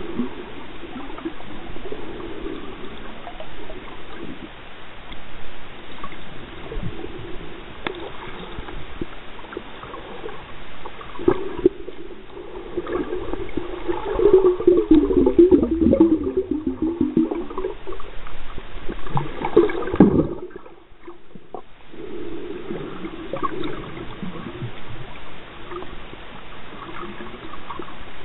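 Underwater water noise against the camera: a steady gurgling wash with scattered clicks and knocks. It grows louder in the middle and drops off briefly about twenty seconds in.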